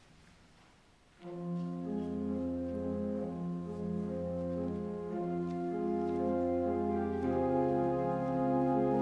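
Church organ starts playing about a second in, with sustained, changing chords over a held low bass note.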